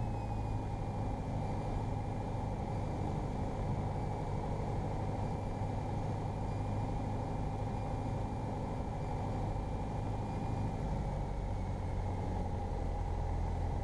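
Piper PA-28 light aircraft's piston engine and propeller droning steadily at approach power, heard inside the cabin. The drone shifts slightly about eleven seconds in as the aircraft nears touchdown.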